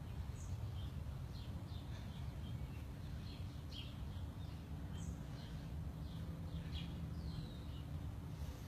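Birds chirping now and then, short high calls scattered throughout, over a steady low background hum.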